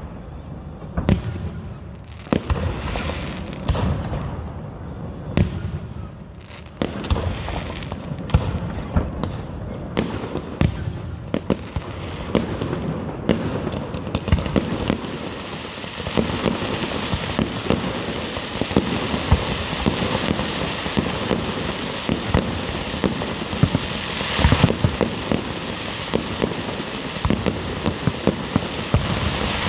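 Fireworks display: a run of separate sharp bangs. From about halfway it thickens into a dense, continuous crackle of rapid pops and bangs.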